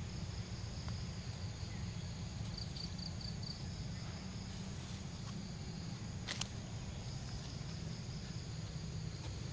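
Forest ambience: a steady high insect drone over a low rumble, with a short run of quick chirps about three seconds in and a single sharp click about six seconds in.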